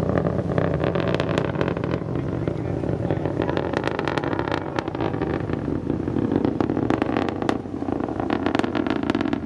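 Distant rumble of an Atlas V rocket's RD-180 first-stage engine climbing away, a steady deep rumble shot through with sharp crackles.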